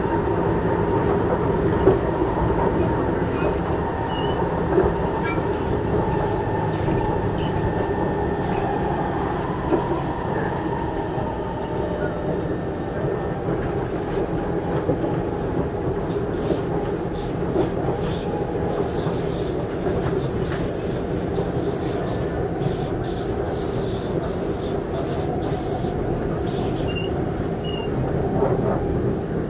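Cabin noise of a Singapore MRT train under way: a steady rumble of wheels on the rails, with a few brief high squeals.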